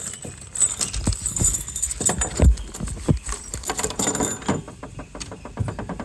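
Loose metal hardware, nuts, bolts and washers, clinking and jangling as it is handled, with a few dull knocks in between.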